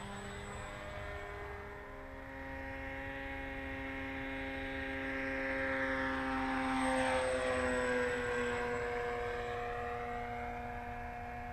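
Skywalker 1880 electric FPV plane's motor and propeller making a steady tone as it flies a low pass. It grows louder to a peak about seven seconds in, where the pitch drops as it goes by, then fades.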